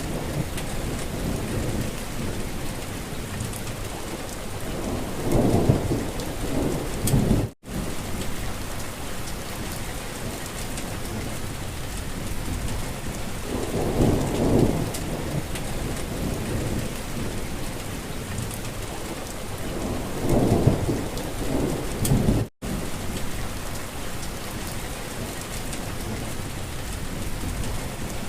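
Steady rain falling on a surface, with low rumbling swells every several seconds. Twice, about fifteen seconds apart, the sound drops out to silence for a split second, where the looped recording restarts.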